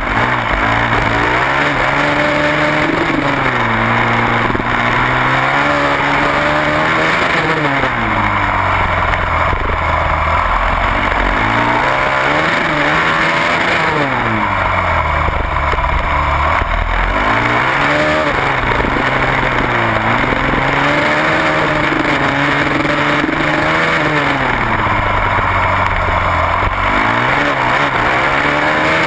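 Onboard sound of a supermoto racing motorcycle's engine at race pace, revving up hard and dropping away again about six times as it accelerates out of corners and slows into the next.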